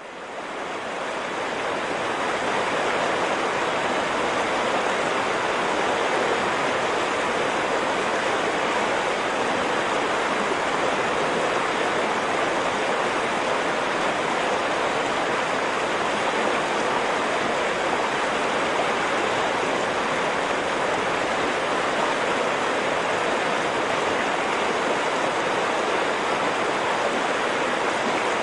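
Steady rush of flowing stream water, fading in over the first two seconds and then holding level without the rise and fall of breaking waves.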